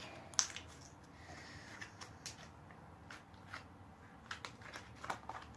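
Faint handling of slime and its plastic container: scattered soft clicks and short sticky rustles, a little louder near the end.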